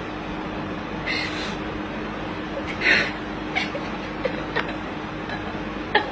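Young woman crying: a string of short, high-pitched sobbing cries, the loudest about three seconds in, over a steady background hiss and hum.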